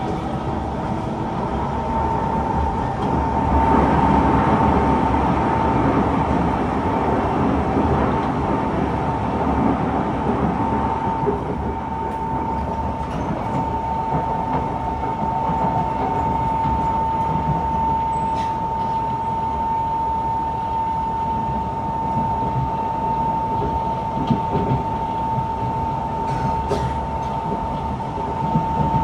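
Kawasaki C151 metro train heard from inside a car while running between stations: a steady rumble of wheels on track, with a steady high whine held from about a second and a half in. A few faint clicks come in the second half.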